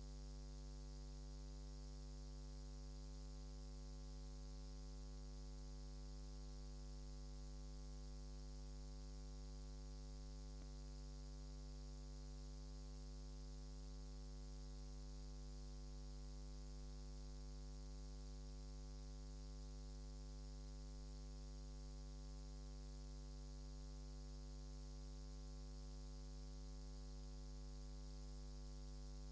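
Steady electrical mains hum with a stack of evenly spaced overtones and a faint hiss, unchanging throughout; an empty court with no play going on.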